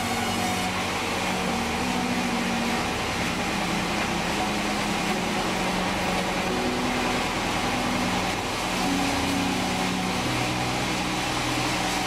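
Sawmill's vertical band saw and its drive running steadily between cuts, a continuous mechanical hum and hiss with no surge of blade cutting into wood.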